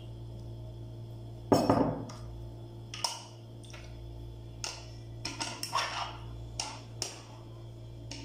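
Kitchenware clinking: a metal mesh strainer and a glass jar knocking against a frying pan while canned nata de coco drains. One loud clatter with a short ring about a second and a half in, then a string of lighter clinks and taps, over a steady low hum.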